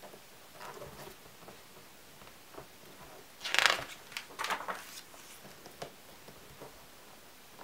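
A page of a hardcover photo album turned by hand. Soft paper rustles come as it is lifted, then a loud swish about three and a half seconds in as it flips over, and a second smaller swish, followed by a few light ticks of paper settling.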